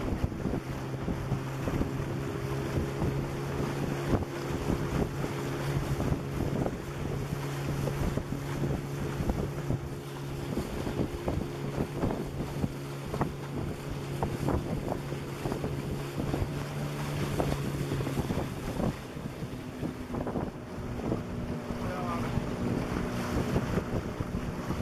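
A small river boat's outboard motor runs at a steady low speed, its note shifting about three-quarters of the way through, while water rushes past the hull and wind buffets the microphone.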